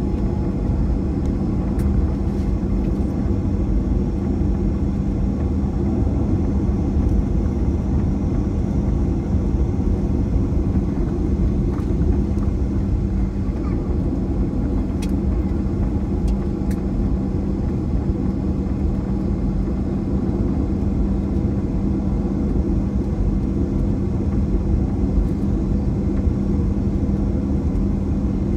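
Steady drone of a Boeing 737-800 in flight, its CFM56 turbofan engines and airflow making an even rushing noise over a constant low hum.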